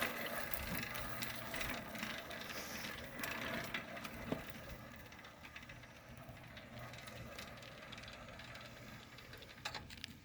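Faint mechanical clicks and rattles from the bicycle and gear being handled, busiest in the first four seconds, then dying down to a low, steady background.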